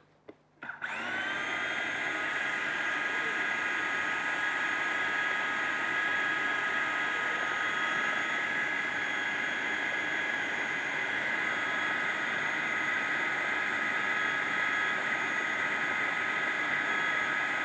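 Food processor motor starting with a short rising whine about a second in, then running steadily as it purées a thick mixture of cooked quinoa, avocado and tahini, winding down at the very end.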